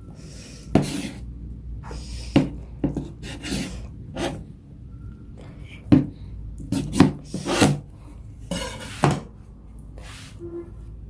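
Kitchen knife slicing a tamagoyaki (Japanese rolled omelette) into pieces, knocking on the cutting board with each cut: about a dozen sharp, irregular strokes, with a quick run of them in the middle and near the end.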